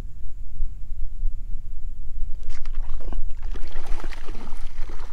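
Water splashing and sloshing at a kayak, starting about two and a half seconds in with irregular crackling splashes, over a steady low rumble.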